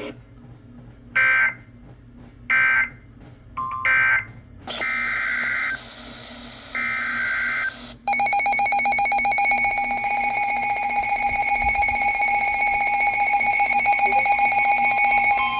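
Emergency Alert System SAME data bursts: three short screeching bursts about a second apart, the end-of-message code closing a warning, then two longer bursts of a new alert's data header. About eight seconds in, a loud steady electronic alert tone with a fast pulsing buzz cuts in sharply and holds.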